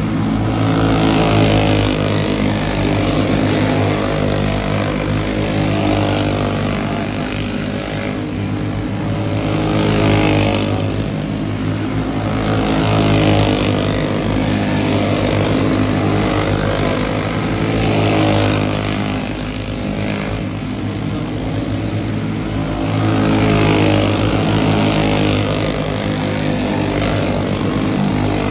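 Engines of several quarter midget race cars running laps together, a steady pitched drone whose loudness swells and fades every few seconds as the cars pass.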